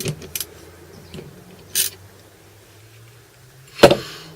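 Light clicks of metal parts and tools being handled, a brief scrape, then one sharp loud knock near the end.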